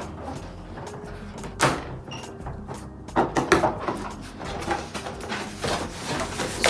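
Cardboard packaging of an air fryer being handled and opened: a sharp knock about one and a half seconds in, then bursts of scraping and knocking around the middle and again near the end.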